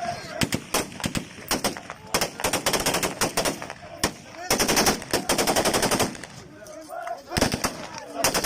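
Rifle gunfire: scattered single shots and quick bursts, with a long unbroken automatic burst from about four and a half to six seconds in. This is celebratory gunfire of the kind fired during Iraqi tribal hosa chanting.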